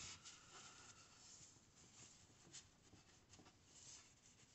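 Near silence with faint scattered rustles and soft ticks of hands handling a crocheted yarn cup packed with polyester fiberfill stuffing.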